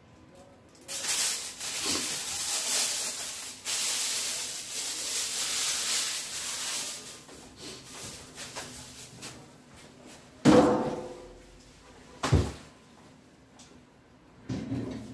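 Several seconds of steady rushing noise, then a sharp knock with a brief ringing and, soon after, a dull thump.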